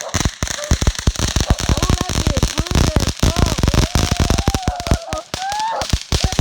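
Fireworks going off: a rapid, irregular run of sharp cracks and pops. A wavering tone sounds over them in the middle and rises near the end.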